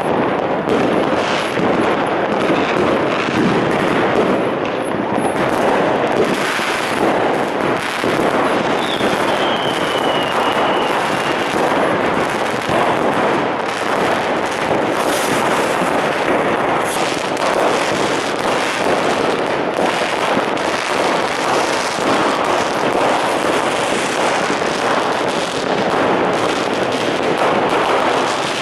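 Dense New Year's Eve fireworks: firecrackers and rockets going off in a continuous crackle of overlapping bangs. A whistle falling in pitch comes through about nine seconds in.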